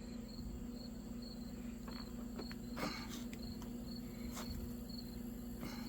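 A cricket chirping in short, even pulses, over a steady low hum, with a few faint clicks from parts being handled.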